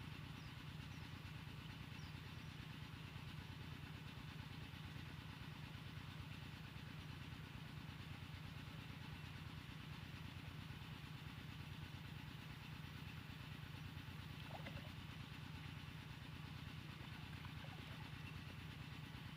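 A small engine running steadily at idle, a low rumble with a fast, even pulse that does not change.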